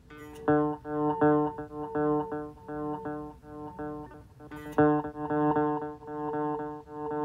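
Guitar played through a Donner Ultimate Delay pedal: the same short note repeats in evenly spaced echoes, dies down about four seconds in, then returns louder after a sharp click. Another click sounds just as the echoes begin.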